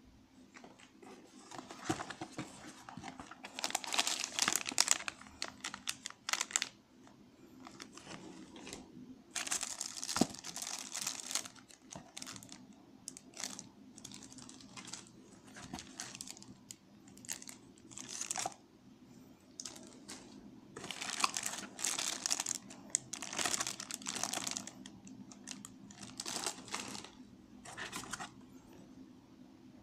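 Packaging being unwrapped by hand, crinkling and rustling in irregular bursts, with a few louder stretches.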